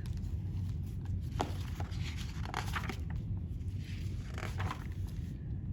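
Soft rustling and handling of a picture book as it is opened to the first page, a few brief paper swishes over a steady low hum.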